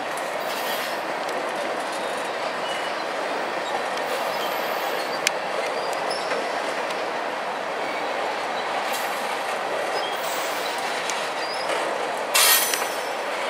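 Freight cars (gondolas and tank cars) rolling slowly past under a slow order, a steady rumble of steel wheels on rail with occasional sharp clicks. Near the end a brief, louder high-pitched wheel squeal.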